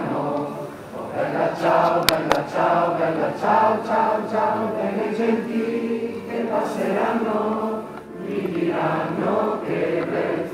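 A crowd of marchers singing a song together in chorus, with two sharp clicks about two seconds in.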